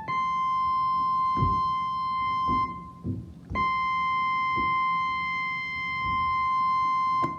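Electronic keyboard playing a goal-horn imitation of the Pittsburgh Penguins: one high, sustained note held for about three seconds, then, after a short break, the same note held again for about four seconds. A few faint low knocks fall in the gap.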